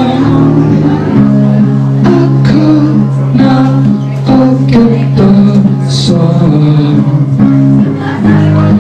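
Rock duo playing live: electric guitar holding low notes over drums, with a bright crash about six seconds in.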